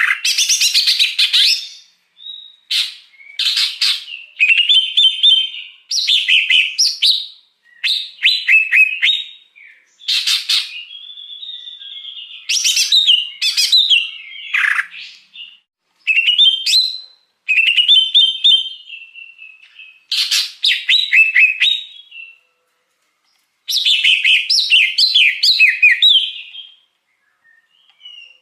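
Green leafbird (cucak hijau) singing: about a dozen short, varied phrases of quick chattering notes and brief whistles, separated by short pauses.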